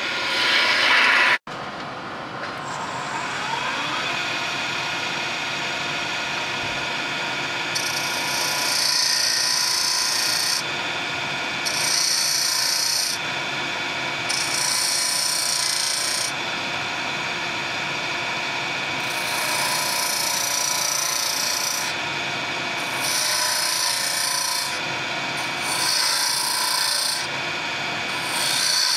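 Wood lathe running with a steady whine while a hand-held turning tool cuts a series of grooves into a spinning wooden spindle: repeated hissing scrapes, each lasting one to three seconds, as the tool bites into the wood. The sound breaks off sharply about a second in and resumes.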